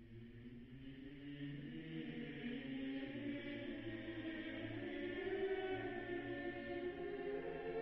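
Choral chant over a held low drone note, fading in and growing steadily louder.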